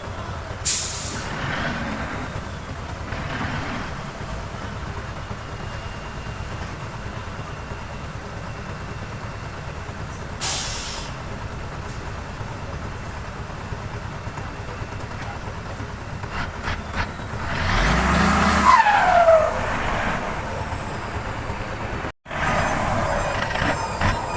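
Heavy diesel earthmoving machinery running steadily, with two short hissing bursts. Near the end it gets louder and a squeal falls in pitch.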